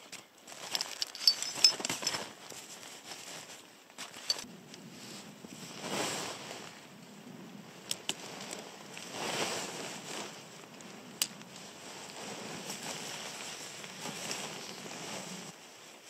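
Tent fabric rustling and crinkling as it is unpacked and handled, with a few sharp clicks and taps from the tent poles and fittings, the loudest about one to two seconds in.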